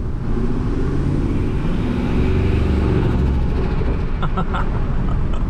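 Turbocharged 5.4 L Triton V8 of a 2003 Ford F-150, heard from inside the cab, pulling with rising revs, then lifting off about three seconds in with a rapid fluttering chatter from the turbo's blow-off valve. The owner cannot explain the flutter.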